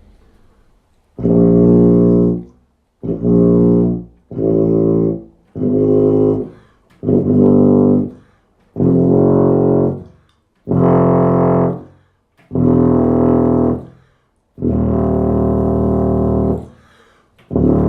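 Mirafone 1865U five-valve C tuba played through a Mike Finn MF3 mouthpiece: a run of about ten separate low-register notes, each about a second long with short breaths between, the second-to-last held longer.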